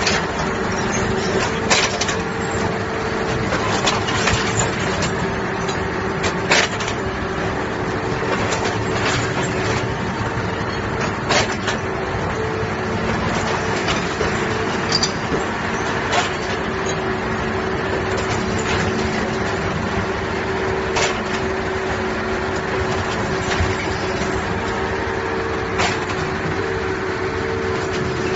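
Heavy railway construction machinery running with a steady droning hum, punctuated by sharp clanks every few seconds.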